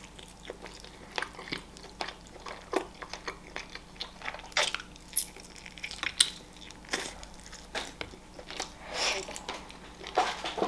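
A person biting into and chewing a baked chicken drumstick, with irregular wet mouth clicks and smacks.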